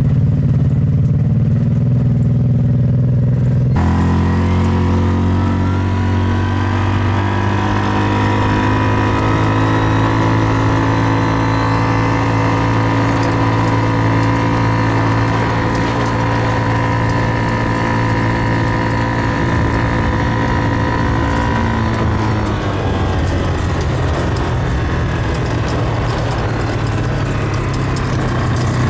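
Motor vehicle engine running at a steady speed, as on a drive. The tone changes abruptly about four seconds in, then holds steady before turning rougher near the end.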